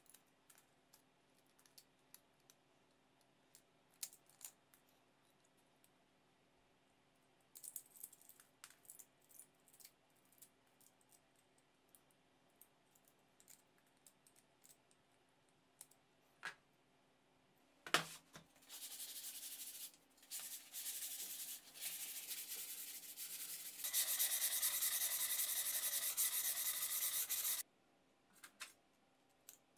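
Needle-nose pliers picking and snapping support material off a 3D-printed plastic part: scattered small clicks and snaps. About halfway comes one sharp snap, then several seconds of steady rubbing or scraping in a few stretches, loudest near the end, which stops suddenly.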